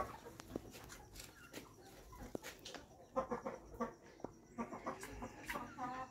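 Chickens clucking faintly, a few short calls here and there, with light clicks and knocks.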